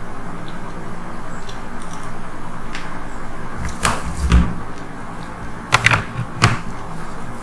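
Steady background hiss with a handful of sharp knocks and clicks in the second half, the loudest a low knock about four and a half seconds in.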